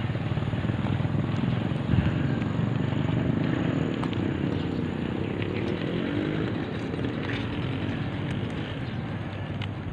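Steady rushing noise of a bicycle ride: wind on the microphone and tyres rolling on a concrete road.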